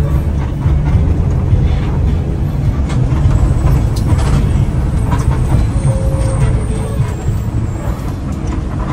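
Engine and road noise of a Mercedes-Benz intercity bus under way, heard from inside the driver's cab: a steady low rumble with scattered light clicks and rattles.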